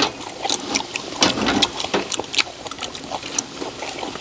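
Assorted clams grilling on a wire rack over charcoal, their juices sizzling and bubbling in the shells, with many irregular sharp clicks of metal tongs against the shells and grill.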